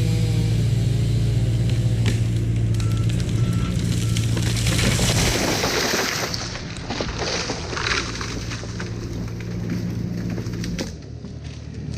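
Loader engine running steadily under load as it pulls the rope, with three short beeps of its reverse alarm, then the dead elm cracking and crashing to the ground in the middle. The engine sound drops away near the end.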